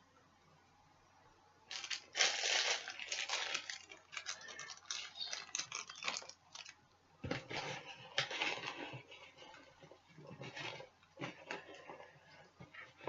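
Plastic wrapping crinkling and tearing in irregular bursts as a puzzle cube is unwrapped, starting about two seconds in.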